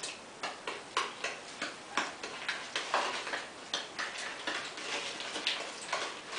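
A spoon clicking against a mixing bowl while stirring a thick cookie-dough mixture, about three sharp clicks a second in an uneven rhythm.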